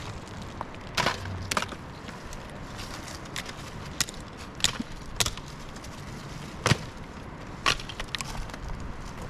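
Dry wood snapping: a string of sharp, irregular cracks of twigs and branches breaking, over a steady rushing background.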